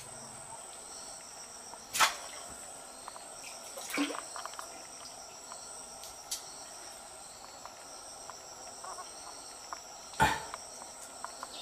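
Insects chirping: a steady high-pitched chorus with a quicker pulsing chirp beneath it. Three brief sharp knocks cut through it, about two, four and ten seconds in.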